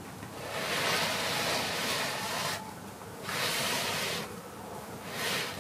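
A hand stroking a calico cat's fur close to the microphone: three soft rustling strokes, the first long, the next two shorter.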